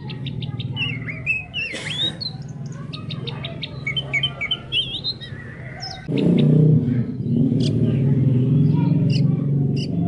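Songbird singing a varied run of whistled notes, chirps and quick rising and falling trills, over a steady low pulsing drone that grows louder about six seconds in.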